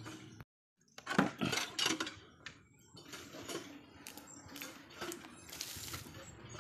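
Irregular knocks and rustles from footsteps on stone paving slabs and a handheld phone being jostled while walking. The loudest cluster of knocks comes about a second in, just after the sound cuts out completely for a moment.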